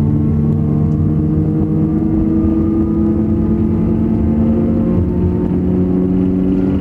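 Thalys high-speed train heard from inside the driver's cab: a steady loud running drone with several whining drive tones rising slowly in pitch as the train gathers speed.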